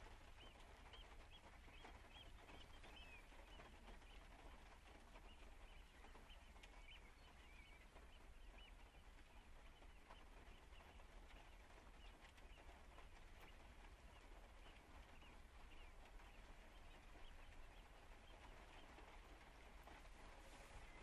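Faint outdoor ambience in light rain: a soft, steady hiss with a low rumble underneath. Distant small birds chirp now and then, mostly in the first few seconds and again around six to eight seconds in.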